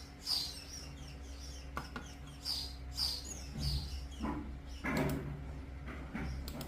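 A small bird chirping repeatedly, short high chirps about twice a second, over a steady low hum.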